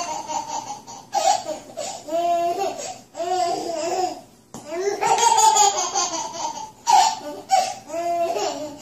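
Baby laughing in repeated high-pitched bouts, with short breaks between them.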